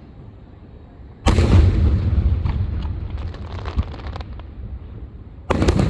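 Fireworks bursting: a loud boom about a second in, with a rumbling echo and scattered crackles that die away over about three seconds, then a second boom near the end.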